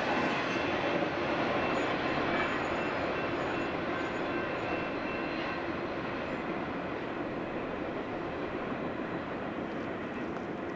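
Freight train rolling past on the rails, a steady rumble and rail noise with faint wheel squeal, slowly fading as the train draws away.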